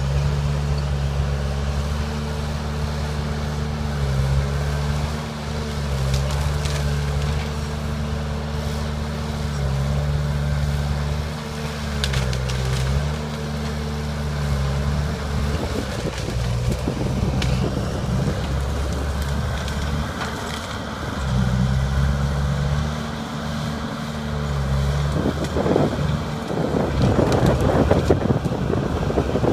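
Diesel engine of a John Deere crawler dozer running and working, its pitch rising and falling as it loads up and eases off. Branches and brush crackle and snap under the machine, twice in the second half and loudest near the end.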